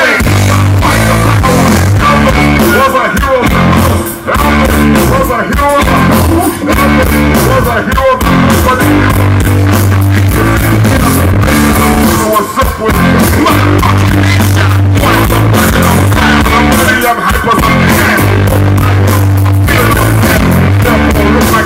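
Rap-rock band playing live at high volume: electric guitar, bass and drums, with vocalists at their microphones.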